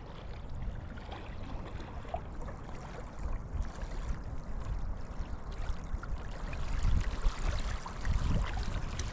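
Steady rush of flowing water, with a low rumble of wind on the microphone underneath.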